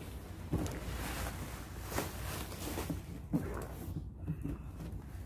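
Rustling and handling of packaging as a new vacuum cleaner is unpacked, with a few sharp knocks and clatters.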